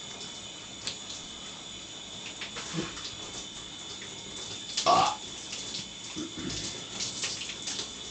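Shower water running steadily, with a short burp about five seconds in that rises well above the water, and a smaller, lower one a little before three seconds.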